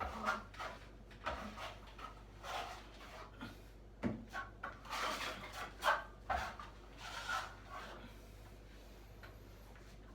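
Hand tool scraping on joint filler and plaster in a series of short, uneven strokes, thinning out near the end.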